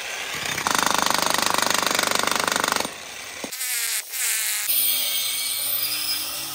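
Corded electric demolition hammer chiselling into an asphalt road, hammering rapidly for about two seconds and stopping about three seconds in. Other, unclear noise follows.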